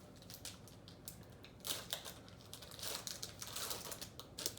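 Crinkling and rustling of a trading-card pack wrapper being opened, with cards being handled: irregular crackles, thickest around two seconds in and again from about three to four seconds, and a sharp click near the end.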